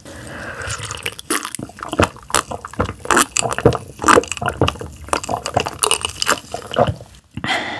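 Close-miked wet eating sounds: irregular squishy mouth clicks and smacks of chewing and swallowing.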